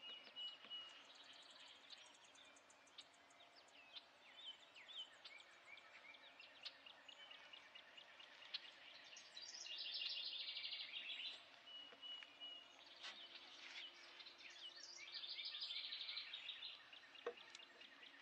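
Faint outdoor chorus of songbirds: many quick high chirps and whistles, with two longer, louder trills about ten and fifteen seconds in. A single sharp click sounds near the end.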